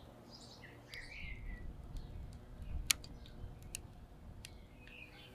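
Firewood crackling in the firebox of a wood-fired cauldron stove: a few scattered sharp pops, the loudest about three seconds in, over a low rumble. Small birds chirp in the first two seconds and again near the end.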